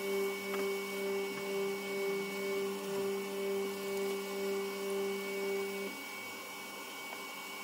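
A small electric motor running with a steady hum that wavers regularly in loudness, cutting off suddenly about six seconds in.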